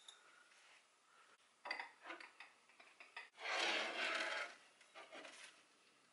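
Potted plants being lifted off and set down on a shelf: a few short clinks and scrapes of pots, with one longer scraping, rustling noise about the middle that is the loudest.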